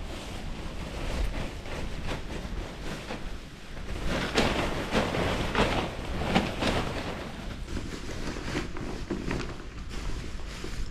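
Tent fabric of a Fjallraven Abisko Friluft 2 rustling as it is gathered up and folded, loudest and busiest from about four to seven seconds in, over steady wind on the microphone.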